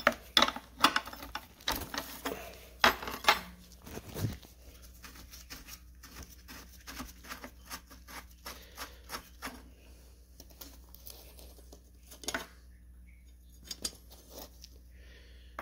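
A wrench and gloved hands working a transmission cooler line fitting on a car radiator, metal clinking and scraping. Sharp clinks come in the first few seconds, then quicker, lighter scratching, growing sparse near the end.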